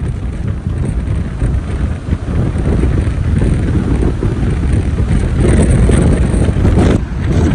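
Strong wind buffeting the microphone: a loud, steady, low rumble with gusty rises and falls and a brief lull about seven seconds in.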